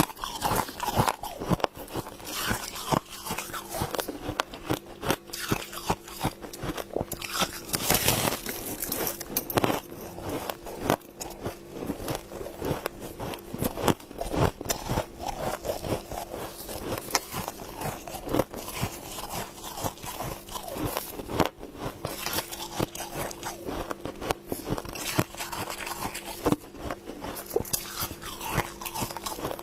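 Close-up crunching and chewing of mouthfuls of fluffy frost, with dense, irregular crisp crackles and bites that go on without a break.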